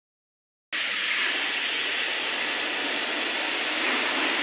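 A steady, even hiss of rushing noise that starts abruptly just under a second in and holds level.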